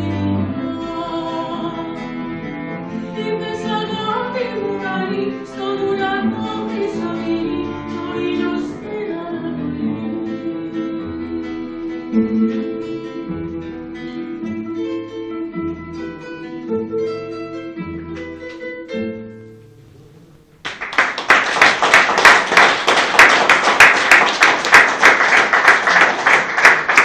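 A woman singing with a nylon-string classical guitar and a bowed cello. The song ends about twenty seconds in, and after a brief pause the audience breaks into loud applause, louder than the music.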